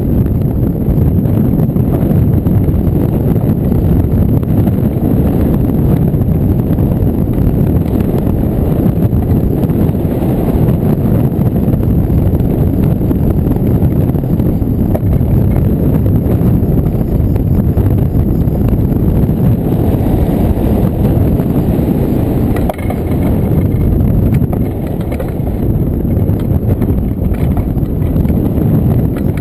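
Wind rushing over the microphone of a camera on a hang glider in gliding flight: a loud, steady, low rumbling rush of air with no engine, easing slightly for a moment past the middle.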